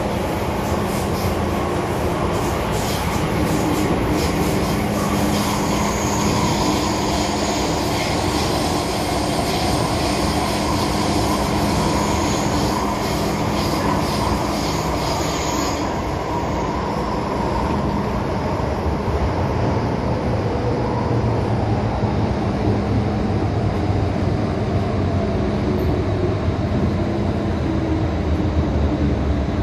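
Inside an MTR M-Train electric multiple unit running through a tunnel and slowing into a station: steady wheel-on-rail rumble and motor hum. A high hiss from the rails fades out about halfway through.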